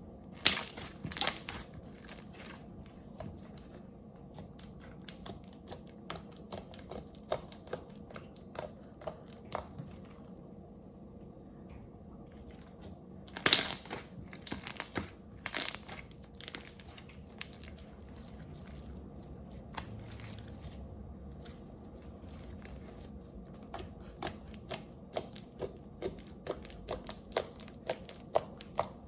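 Homemade clear-glue and Vaseline slime being worked, giving irregular sticky clicks and crackling pops, densest about halfway through, with a run of small clicks near the end.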